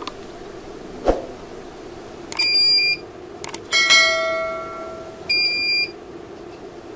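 A bell-like chime rings and dies away in the middle, the notification-bell sound of a subscribe animation, preceded by a couple of light clicks. Short high electronic beeps from a buzzer sound twice, a few seconds apart, over a steady low hum, with a sharp click about a second in.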